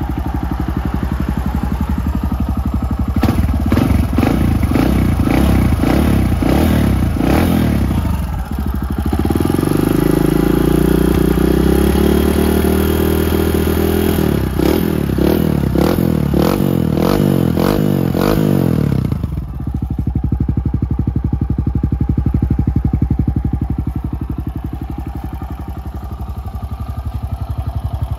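Kawasaki KLX125's single-cylinder four-stroke engine running through an FMF slip-on muffler. It idles, is revved repeatedly from about three seconds in, is held higher for a few seconds around the middle, then drops back to a steady idle for the last third.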